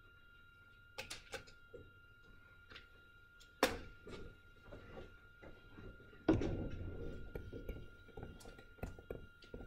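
Scattered knocks and clicks of people and objects moving in a room, with a sharp knock about three and a half seconds in and a heavier thump about six seconds in that trails off in a low rumble, over a faint steady high-pitched whine.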